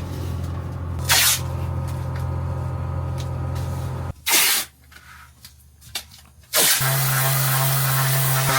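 A steady machine hum with a short blast of air hiss about a second in. The hum cuts off abruptly about four seconds in, and after a quieter spell with one brief burst, a steady air hiss over a lower hum starts near the end: compressed-air tools at work on an alloy wheel repair.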